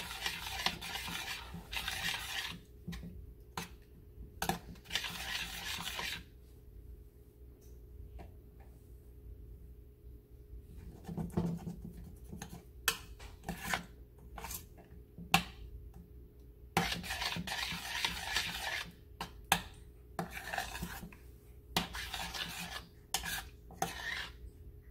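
Metal spoon stirring and scraping in a stainless steel saucepan of thick strawberry syrup, with clinks against the pan's side, working out cornstarch clumps. It scrapes steadily at first, goes quieter with only a few taps in the middle, then scrapes and clinks again toward the end.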